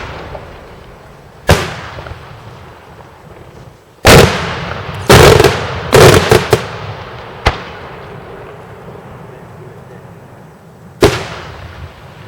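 Daytime fireworks shells bursting overhead: sharp, loud bangs, each trailing off in an echoing rumble. There are single bangs about a second and a half in and near the end, and a loud rapid run of several bangs in the middle.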